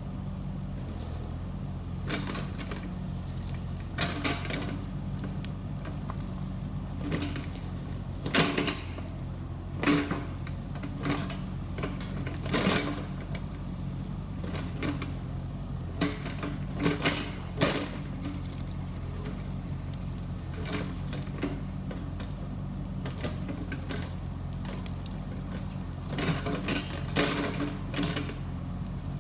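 Diesel engine of a Kubota KX71-3 mini excavator running steadily, with irregular sharp cracks and knocks over it.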